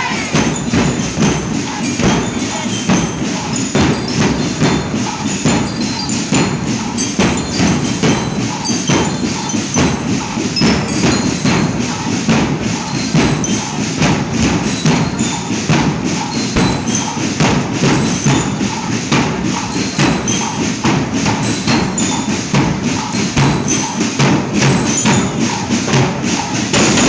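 Parade marching band drums, bass drums and other drums beating a steady, continuous march rhythm, with bell-like metallic tones over it.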